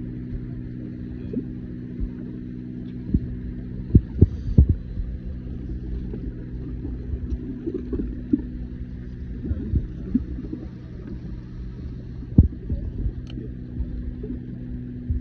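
Steady low hum of a boat's running machinery, broken by a few sharp knocks and thumps, the loudest about four seconds in and again about twelve seconds in.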